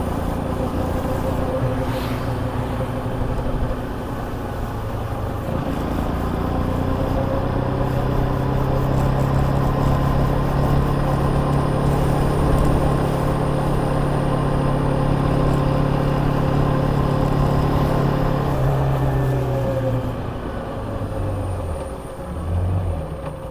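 KTM Duke 250's single-cylinder engine running under way. It picks up about five seconds in and holds a steady pitch, then falls away as the throttle closes near the end, with a short rev just before it ends, over a steady rushing noise.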